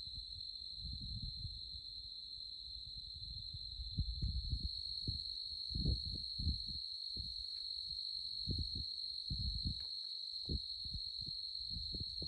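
Night insects, likely crickets, trilling in one high, unbroken tone, with irregular low rumbles and thumps underneath, loudest about 4 s and 6 s in.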